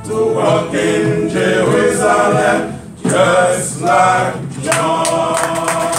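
Male vocal group singing a gospel spiritual a cappella in harmony, in short phrases with brief breaks between them.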